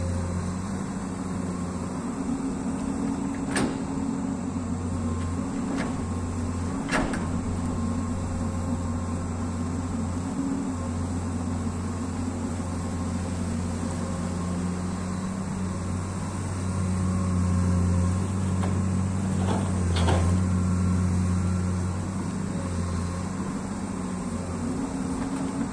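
Diesel engine of a Komatsu amphibious long-arm excavator running steadily under hydraulic digging load, working harder for a few seconds past the middle. A few short sharp knocks come through.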